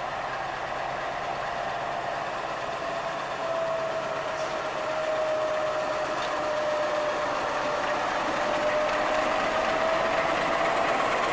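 YDM4 metre-gauge diesel locomotive running past at close range, hauling its coaches. It grows louder as it approaches, with a steady whine that dips slightly in pitch and rises again.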